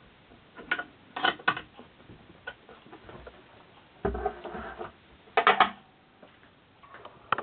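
Clinks and taps of 13 mm wrenches on the bolts and metal plate of a Durst M605 enlarger's column mount as the nuts are tightened, with a dull knock about four seconds in and a brief metallic ring soon after.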